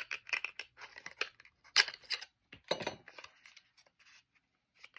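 A small paperboard ink-bottle box being slit open with a blade opener and its flaps pried apart: a run of short scrapes, clicks and paper rustles, with two sharper, louder rasps about two and three seconds in.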